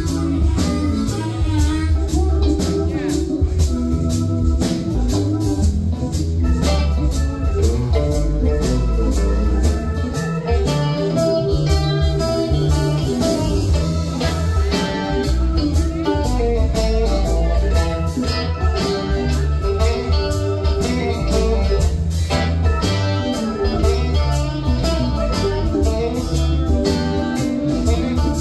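Live rock band playing: electric guitars, bass, keyboards and drum kit.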